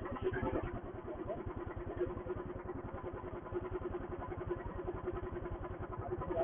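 Royal Enfield Thunderbird's single-cylinder four-stroke engine idling, with a steady, even beat.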